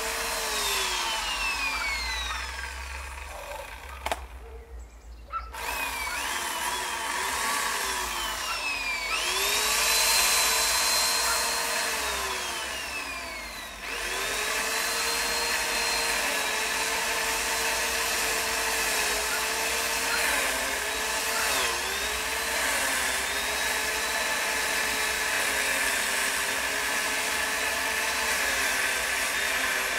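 Power saw motor running at high speed, winding down and nearly stopping about four seconds in, then spun back up twice and held at speed with a few brief dips in pitch.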